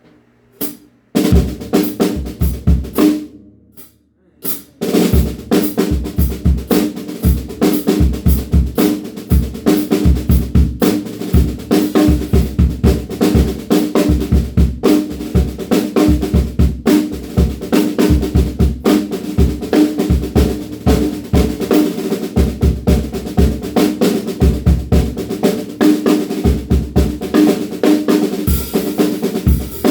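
DW Frequent Flyer drum kit played: a few hits about a second in, a short pause, then a steady groove of bass drum and snare from about five seconds in, with the snare ringing. Cymbals come in brighter near the end.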